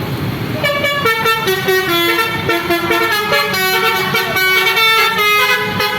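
A bus's musical 'basuri' telolet air horn playing a quick tune of stepped notes, starting about half a second in, over the low rumble of the passing vehicle.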